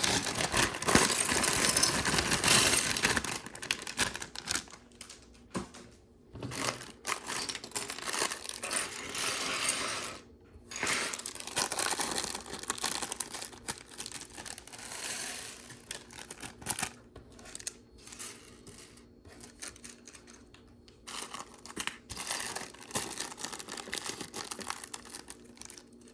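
Plastic parts bags of a Lego set being torn open and crinkled, with small plastic Lego pieces clattering as they spill out onto a surface. The rustling is densest in the first few seconds, then comes in irregular spells of crinkles and clicks.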